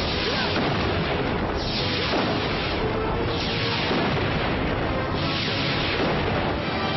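Action-film soundtrack: dense music under repeated booming blast effects, a new blast swelling in about every second and a half to two seconds and falling away in pitch, matching explosive strikes that throw up dirt and dust.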